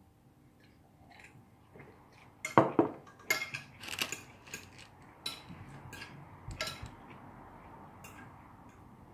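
Cutlery clinking against dinner plates. It is nearly quiet at first, then a cluster of loud clinks comes about two and a half seconds in, followed by scattered lighter clinks.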